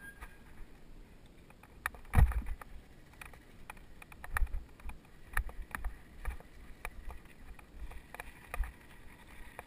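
Mountain bikes being walked up a dirt trail: scattered footsteps, clicks and knocks of the bikes, and low wind rumble on the helmet-mounted microphone. One loud knock comes about two seconds in.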